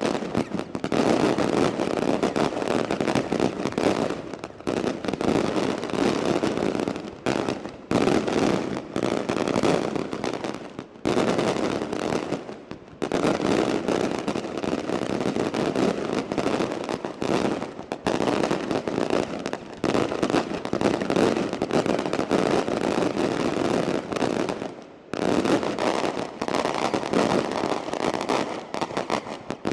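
Daylight fireworks battery: a dense, rapid barrage of bangs from many small aerial reports bursting overhead, nearly continuous, with a few brief lulls.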